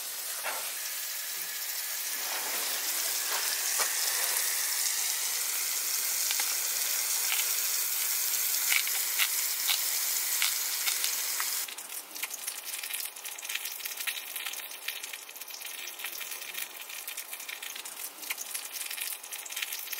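Pork belly sizzling in a hot pan, a steady hiss with frequent spitting crackles. About twelve seconds in it suddenly becomes quieter.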